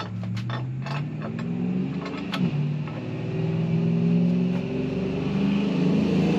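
An engine running and revving, its pitch climbing over the first couple of seconds and then holding steady, with several sharp metallic clicks in the first two and a half seconds.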